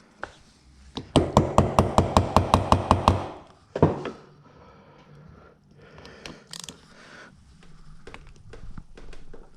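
Hand tools working the crankcase screws of a Yamaha RD50 engine: a quick, even run of about a dozen sharp clicks over two seconds, then a single knock, then quieter scattered clicking and handling noise.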